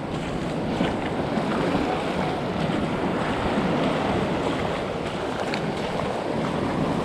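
Sea waves surging and washing across a flat rock shelf, the water foaming over it, with wind buffeting the microphone.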